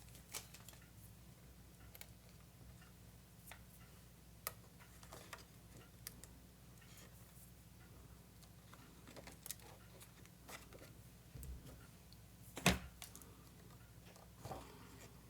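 Faint, sparse clicks and light taps of small miniature-kit parts being handled and set down on a work surface, with one sharper knock a little before the end.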